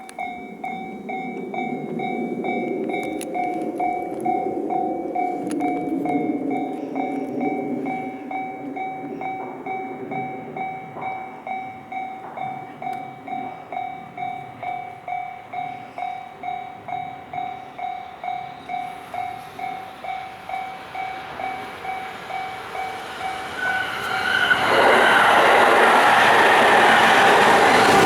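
Level-crossing warning bell ringing, a pitched ding repeating about twice a second. About 24 seconds in, a freight train of tank wagons reaches the crossing and passes it loudly, wheels clattering.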